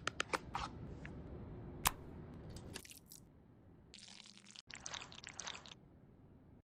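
Hands handling makeup packaging during an unboxing: several sharp clicks and crinkling crackles in a few short spliced stretches, cutting off near the end.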